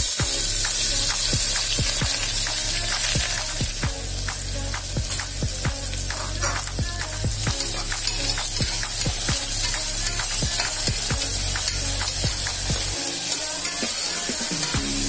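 Chopped onions sizzling as they fry in oil in an aluminium pressure cooker, the sizzle starting abruptly as they go in. A metal spoon scrapes and clicks against the pot many times as they are stirred.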